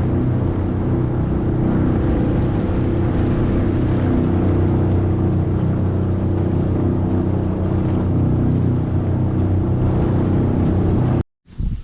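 Small fishing boat's outboard motor running at a steady speed under way. It cuts off suddenly near the end.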